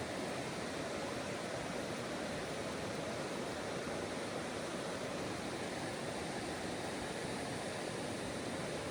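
Mountain creek water rushing over rocks, a steady unbroken wash.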